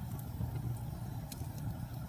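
Wood fire burning in a fireplace: a steady low rumble with a few sharp crackles, the clearest about one and a half seconds in.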